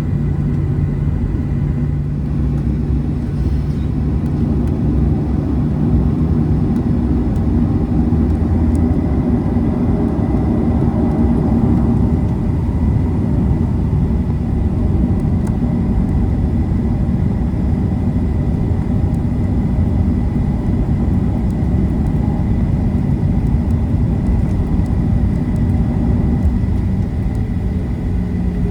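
Cabin noise of a Boeing 737-800 on the ground, its CFM56-7B jet engines running at low thrust: a steady low rumble with a low hum that shifts pitch about six seconds in, and a faint high whine.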